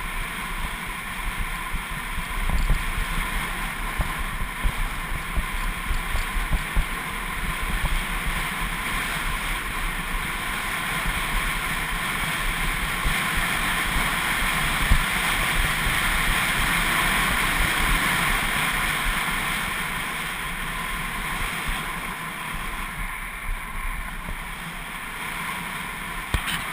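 Wind rushing over the microphone with low buffeting, over a steady hiss of edges sliding on snow during a downhill run.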